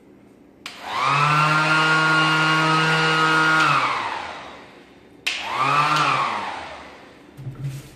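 Ryobi 18-volt cordless 5-inch random orbit sander switched on twice: the motor spins up to a steady whine and runs for about three seconds, then coasts down. About five seconds in it is triggered again briefly and winds down.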